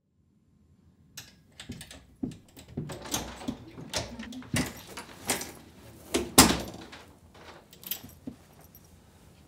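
Keys rattling in a front-door lock, the door unlocked and swung open, then pushed shut with a knock about six seconds in.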